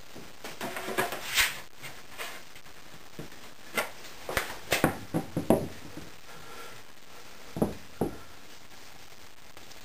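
Pegboard and plywood pieces handled and set down on a table saw's metal top: scattered wooden knocks and clatters in two clusters, then two separate knocks near the end, over a steady hiss.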